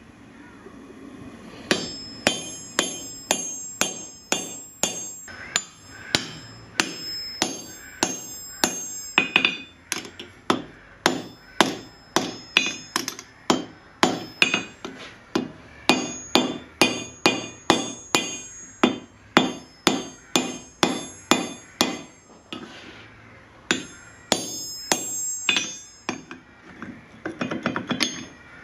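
Hand hammer striking a red-hot steel bar laid over a hardy cutter on an anvil, about two blows a second, each with a high metallic ring. There is a short pause about 22 seconds in, then a quick run of lighter taps near the end.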